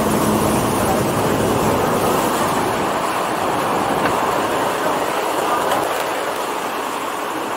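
Steady engine and wind noise heard inside the cabin of a small skydiving jump plane in flight. The low drone weakens about three seconds in.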